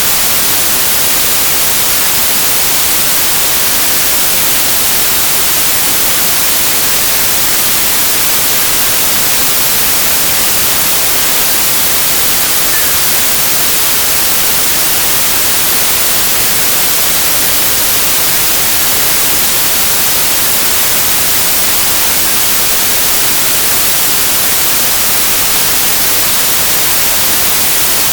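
Steady, unchanging hiss of white noise, brightest in the high treble, with no pauses or changes.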